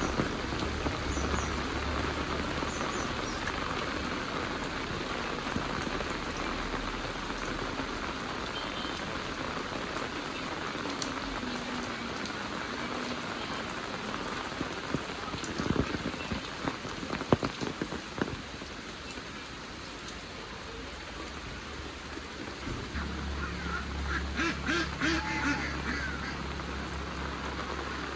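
Heavy rain falling steadily, with a few sharp loud drips or knocks about two thirds of the way in and an animal calling in quick repeated notes near the end.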